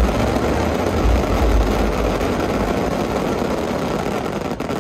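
Fireworks crackling and popping over a large outdoor crowd. A deep rumble dies away in the first two seconds.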